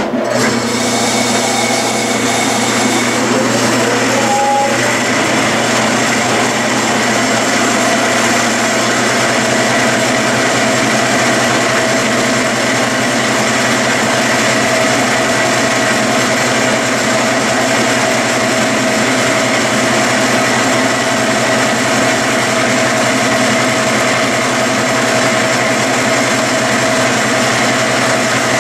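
Metal lathe running steadily in reverse in back gear, its motor and gearing turning the spindle to back a threading die off a freshly cut thread. The sound starts at once, with a brief rising whine a few seconds in.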